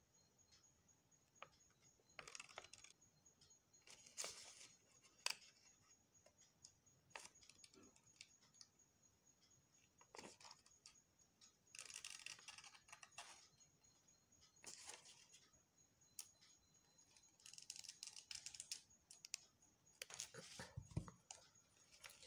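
Scissors cutting out a paper tracing pattern: faint, irregular snips with paper rustling, coming in separate bursts every second or few.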